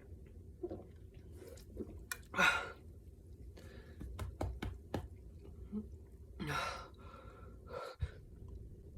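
A man breathing hard in short gasps, with a few sharp mouth and throat clicks in the middle, as he strains to keep down a burp after chugging sparkling water.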